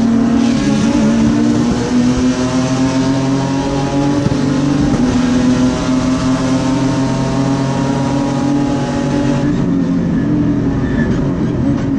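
V6 race car engine heard from inside the cockpit, running hard at fairly steady revs with its note easing slightly about nine and a half seconds in.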